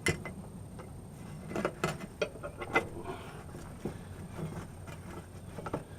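Scattered light clicks and knocks of a hand tool and metal faucet parts being handled while a hidden screw is worked out of the faucet body.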